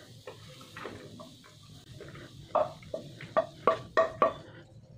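Wooden spatula scraping fried rice out of a nonstick kadai onto a plate, with a quick run of about seven sharp knocks of spatula against pan in the second half.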